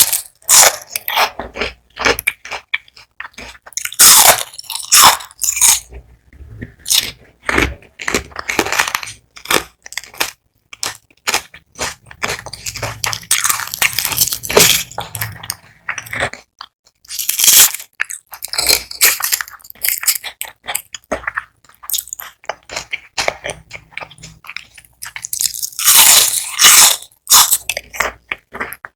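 Close-miked biting and chewing of crispy fried onion rings: loud, irregular crunching of the batter coating in bursts, with short pauses between mouthfuls.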